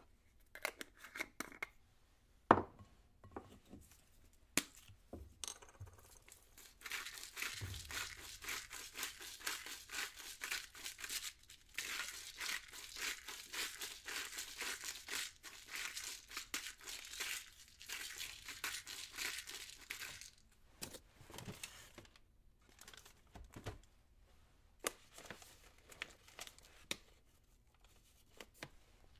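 Packaging being crinkled and torn in a kitchen. Scattered clicks and a sharp knock come first, then about thirteen seconds of dense crinkling, then a few sparse crackles.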